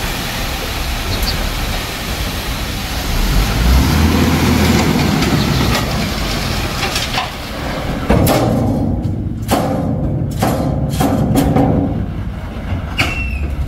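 Ashok Leyland tipper truck unloading sand: its diesel engine runs with the body raised while the load slides out onto the pile. From about eight seconds in comes a run of sharp knocks and clanks as the tipper body comes down and the truck moves off the pile, with a brief squeak near the end.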